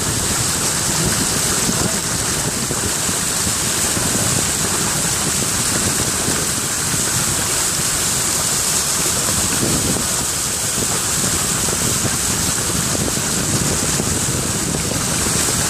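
Steady rushing hiss of a vehicle driving through shallow floodwater, its tyres throwing up water over the road.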